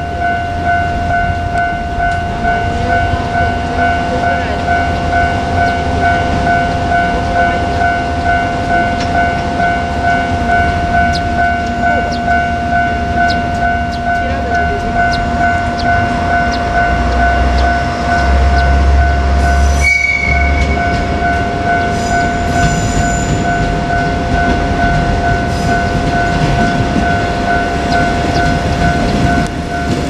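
A level crossing warning bell rings steadily with a pulsing electronic tone while a KiHa 47 diesel railcar's engine rumbles underneath as the train moves off. The engine grows louder about two-thirds through, and a brief high toot sounds around the same time.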